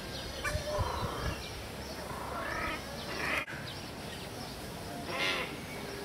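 Several birds calling: a mix of short calls and chirps of different shapes, some rising and some falling, with one louder, longer call about five seconds in. A few low bumps come about a second in.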